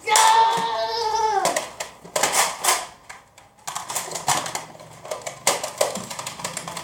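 A child's high-pitched shriek held for about a second and a half, then a run of rapid plastic clicks and clatters from Nerf blasters being cocked and fired during play.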